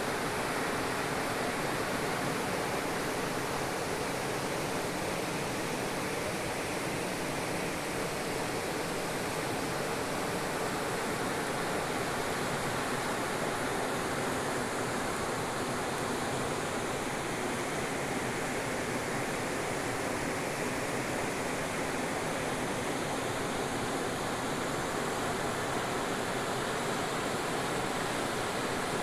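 Steady rushing water, an even unbroken noise without pitch or separate strokes.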